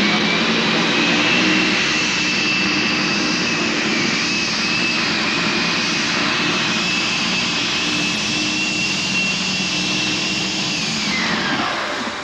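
Modified pulling tractor's engine running at full power as it drags the weight sled down the track, with a high whine that holds steady and drops away near the end.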